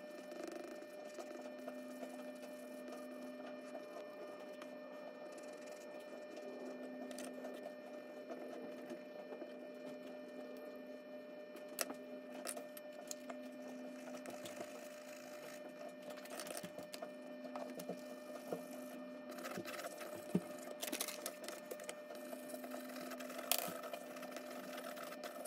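Charcoal pencil scratching on paper in quick shading and hatching strokes, over a steady low hum, with a few sharp ticks in the second half.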